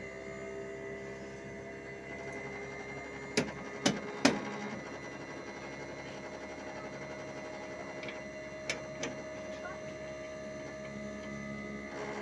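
Outdoor unit of a Hitachi 1-ton split air conditioner running with a steady hum and several held tones. Three sharp knocks come about three and a half to four and a half seconds in, and one more softer one later.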